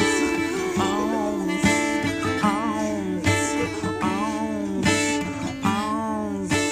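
Music led by guitar, with sustained low notes and wavering, bending high tones repeating about every second and a half.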